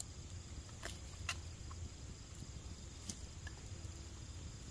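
A few light clinks of an eating utensil against a metal canteen cup, spread out over a faint steady background.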